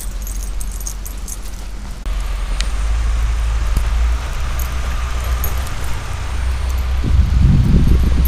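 Jingling of a dog's collar tags, a few light clicks now and then, over a steady low rumble that grows louder about two seconds in. Near the end comes a short burst of rustling and scuffing as the dog moves through snow.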